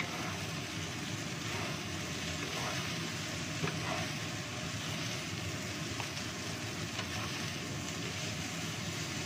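Fried rice sizzling in a wok over a high gas flame, while a wooden spatula stirs and scrapes through it, with a few knocks against the pan.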